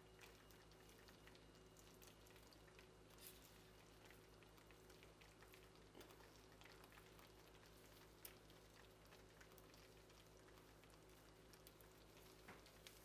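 Near silence: dye water simmering faintly in a steel pan on the stove, with a few soft ticks of a metal spoon working the wet yarn.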